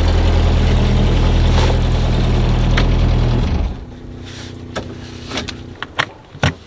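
A boat engine idling, loud and low at first. About three and a half seconds in it cuts to a quieter steady running sound with a few sharp clicks.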